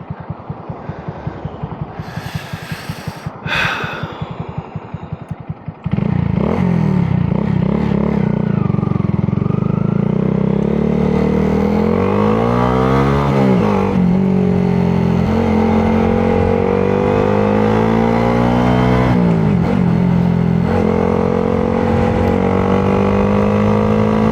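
Honda Grom's single-cylinder engine idling with a pulsing beat, then pulling away sharply about six seconds in. The pitch climbs under acceleration and drops twice as it shifts up, then settles into a steady cruise.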